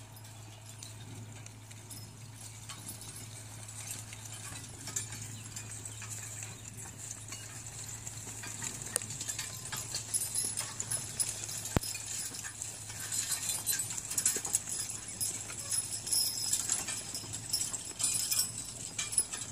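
Six-horse draft team pulling a metal disc harrow past. Hoof steps, clinking harness and chains, and rattling harrow parts grow denser and louder as the team comes close.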